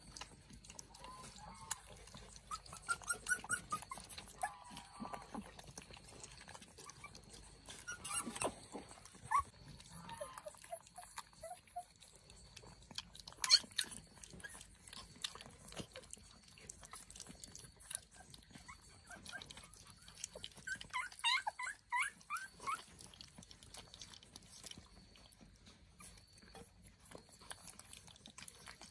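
A dog making short, high-pitched whimpering calls in three bouts, with scattered sharp knocks and rustles in between.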